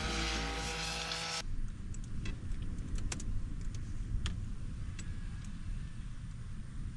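Background music that cuts off about a second and a half in, followed by low wind rumble on the microphone and a few scattered clicks of laptop keys being typed.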